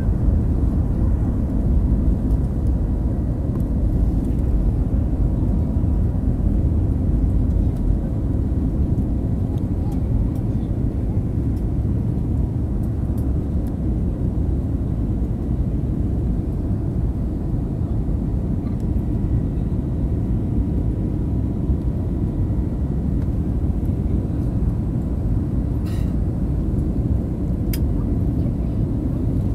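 Airbus A321neo cabin noise in the climb just after takeoff: a steady low rumble of engines and airflow, with a faint steady tone above it and two brief clicks near the end.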